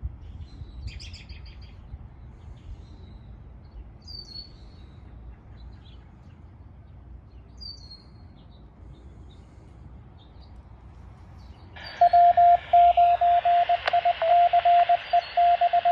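Scattered bird chirps over a low background rumble, then about twelve seconds in a two-way radio loudly breaks in with hiss and a fast on-off beep tone, just before a severe-weather net broadcast begins.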